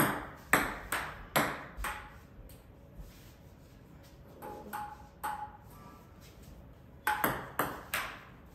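Table tennis ball struck with a paddle and bouncing on the table: sharp clicks. A run of five comes right away and fades off, three softer ones with a short ring come about four and a half seconds in, and a quick run of clicks comes near the end.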